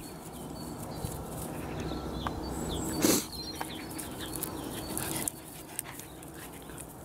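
Excited border collie whining as she plays for a stick, with one louder sudden sound about three seconds in; small birds chirping.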